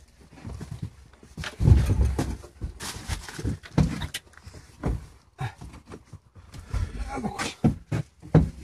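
Irregular metallic knocks and clatter from tools and parts being worked on a Messerschmitt microcar's transmission and drive sprocket, with the loudest thud about two seconds in. The work is loosening the transmission so that a shaft can be taken out.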